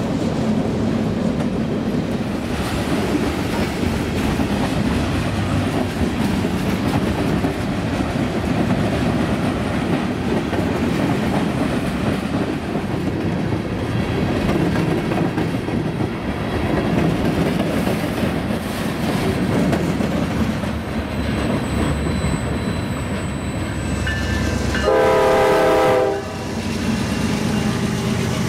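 Norfolk Southern train rolling by with a steady rumble and clatter of wheels on the rails. About 25 seconds in, a diesel locomotive's multi-chime air horn sounds one short chord-like blast, and a second blast begins just at the end.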